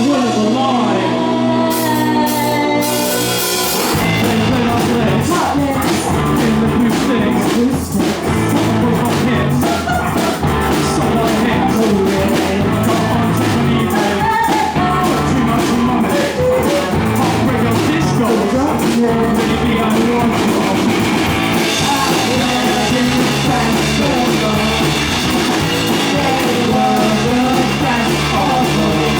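Live rock band playing a song with sung vocals, electric guitar, bass and drum kit. The drum beat comes in about four seconds in, after a short passage without it.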